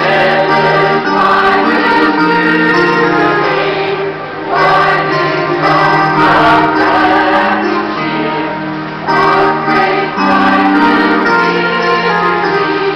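Mixed choir of men and women singing a Christmas carol, in phrases of held notes with brief breaks for breath about every few seconds. The singing starts sharply with the window.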